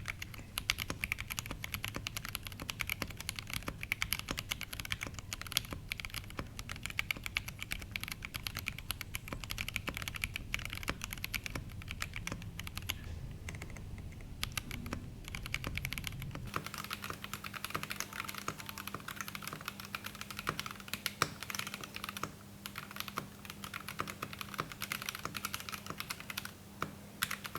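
Fast continuous typing on a fully acrylic stacked 60% custom mechanical keyboard with JWK Ultimate Black linear switches lubed with Krytox 205g0 and Durock V3 stabilizers, a dense stream of keystroke clacks. A little past halfway a low background rumble gives way to a faint steady hum under the typing.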